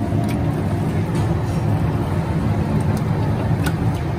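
Steady low rumble of kitchen machinery or a burner, with a few faint wet squelches from hands kneading marinated chicken pieces in a large metal pot.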